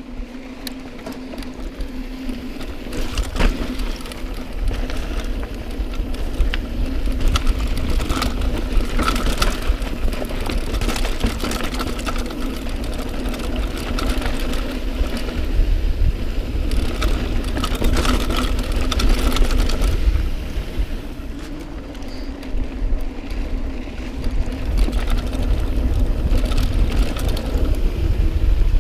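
Mountain bike being ridden on a dirt singletrack trail: frequent sharp knocks and rattles from the bike over the rough ground, over a heavy low rumble and a steady low hum.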